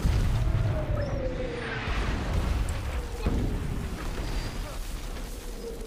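Naval shellfire bombardment: a heavy, continuous rumble of shell bursts with a sharp blast at the start and another about three seconds in. Over it, incoming shells whistle in long falling tones, one after another.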